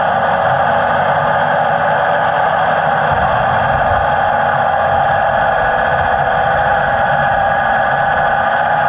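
Radio-controlled model construction machinery running: a steady, loud mechanical whirring of small motors and gears with no change in pace.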